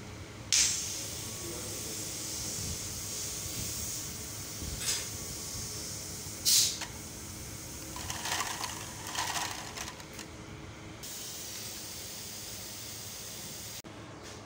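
Steady machine hum and hiss, broken three times by short, loud bursts of hiss, with plastic pipe elbows rattling as a hand picks through them.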